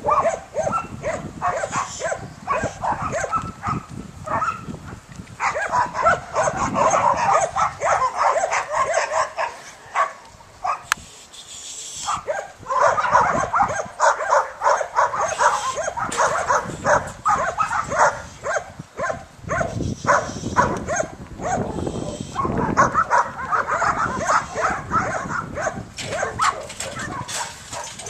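A border collie barking at cattle, quick repeated barks several to a second in long runs with short pauses between.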